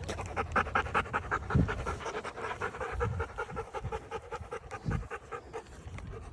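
A dog panting quickly and evenly, with a few brief low thumps.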